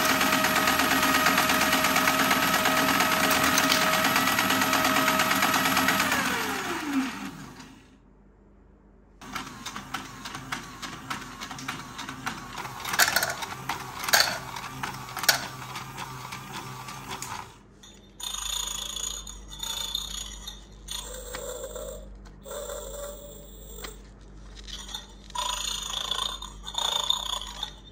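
Electric motor of a Small Duck escalator toy, overdriven at 13 volts from a bench DC power supply, running fast with a loud steady whine. About six seconds in it winds down, falling in pitch. After a short silence come fainter irregular clicks of plastic toy parts and a warbling tone.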